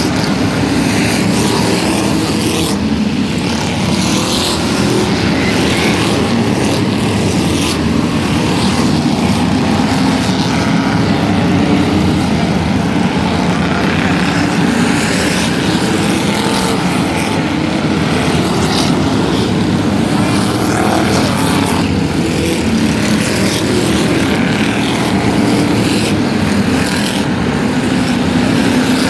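Loud engines of demolition-derby vehicles running hard together in a continuous drone whose pitch wanders slightly.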